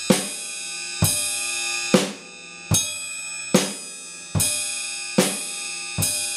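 Drum kit playing a slow two-beat rock groove: bass drum and cymbal struck together, then the snare, alternating at a steady pace of about one stroke every 0.8 seconds. The cymbal rings on between strokes.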